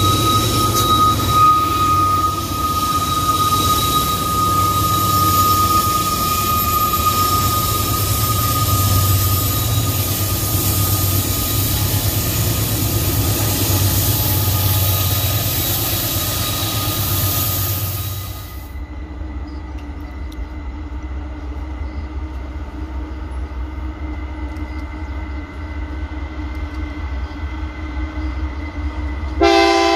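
Diesel freight train passing close: locomotive engine rumble and steel wheels on rail, with a steady high wheel squeal on the curve. About two-thirds through the sound drops to a quieter, more distant locomotive run with a steady tone, and near the end a train horn starts sounding a chord.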